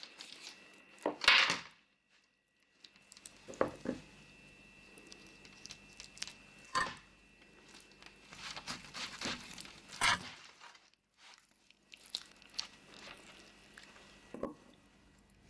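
Scattered kitchen handling sounds of meat being mixed with a garlic and oil marinade: short clicks and scrapes of hands and utensils working the food in a bowl, the loudest about a second in and again near ten seconds, over a faint steady hum.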